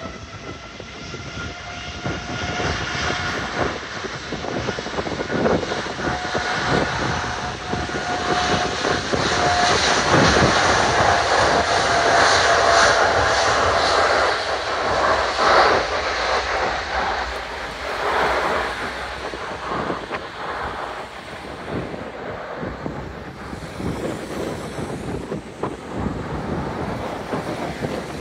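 Boeing 787-9 airliner's jet engines at departure power, a steady whine over a heavy roar. It grows louder to a peak around the middle, then slowly fades.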